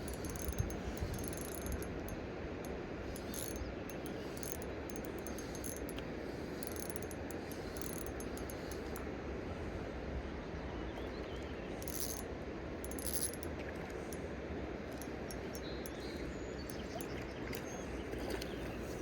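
Steady rush of flowing river water, with a few faint clicks now and then.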